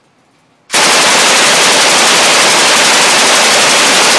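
Machine gun firing one long automatic burst that starts suddenly a little under a second in and lasts about three and a half seconds. The shots blur together into one continuous, overloaded blast.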